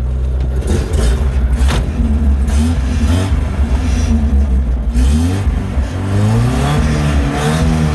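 Nissan 200SX S12 Silvia's inline-four engine running and being revved, its pitch rising and falling several times. The distributor has just been reinstalled and the timing set, and the engine runs smoothly: it sounds good.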